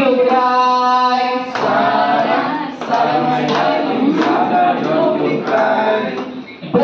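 Unaccompanied group singing of a children's classroom song, men's and women's voices together, with hand claps keeping time from about a second and a half in.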